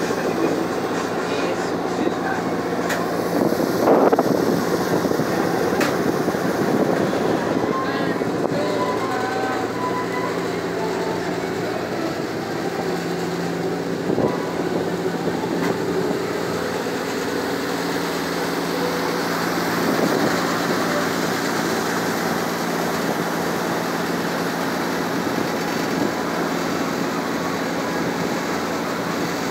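A river ferry's engines running steadily: a constant drone made of several steady low tones, over the rushing wash of the hull pushing through the water.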